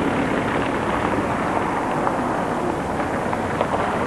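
Steady outdoor background noise with no single sound standing out.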